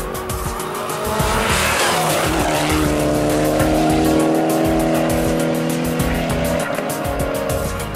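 Rally car driven hard through a tarmac corner: a rush of engine and tyre noise about a second and a half in, then a steady engine note for several seconds. Background music plays underneath.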